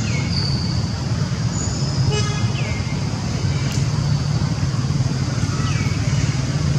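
Steady low hum of a running engine, with short high chirps that fall in pitch every couple of seconds and a brief pitched toot about two seconds in.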